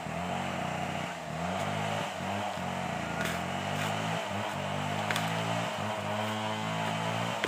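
An engine running, its speed drifting up and down, with two sharp knocks about three and five seconds in.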